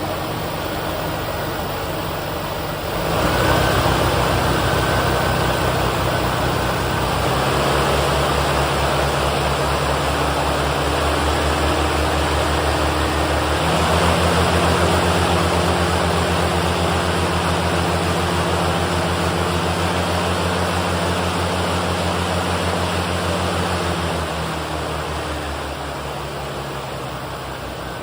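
Remote-control lawn mower running with its swinging blades spinning on the exposed deck, a steady machine drone with a fast even pulse. It speeds up about three seconds in, picks up again around the middle, and eases back near the end.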